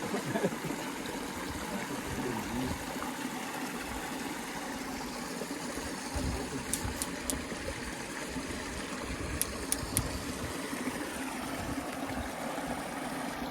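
A small desert creek running and trickling over rocks, a steady water sound. A few sharp faint clicks sound about halfway through.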